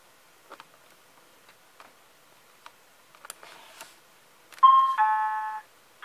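Light clicks of the front-panel timer buttons on a Sony SL-2410 Betamax being pressed, then, about four and a half seconds in, a loud two-note electronic beep lasting about a second as the timer record is engaged.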